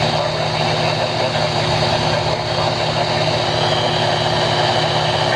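A vehicle engine idling steadily, with an even low pulsing.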